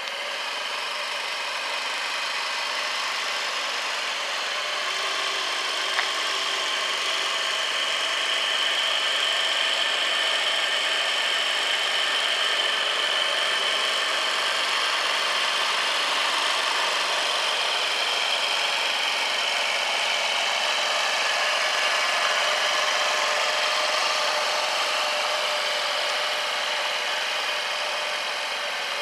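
Honda Crea Scoopy 50 cc scooter engine idling steadily, with one small click about six seconds in.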